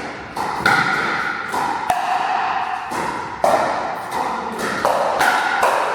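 Pickleball rally: the hollow plastic ball is struck by paddles and bounces, a string of sharp pocks, some with a short ring after them.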